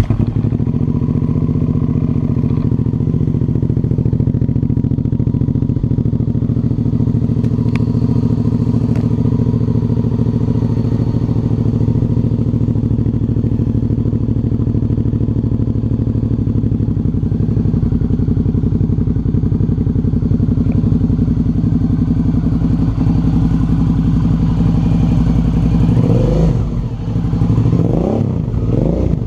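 Suzuki V-Strom 650's 645 cc V-twin running at a steady idle just after starting, then revved up and down a few times near the end.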